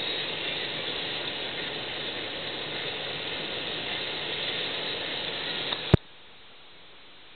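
Steady road and wind noise inside a moving car, cut off by a single sharp click about six seconds in, after which it is much quieter.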